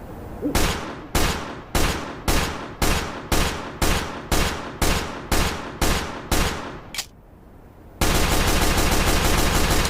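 Pistol gunshot sound effect: about a dozen single shots fired evenly, roughly two a second, each sharp crack dying away. A smaller click follows, then a sustained burst of very rapid fire near the end.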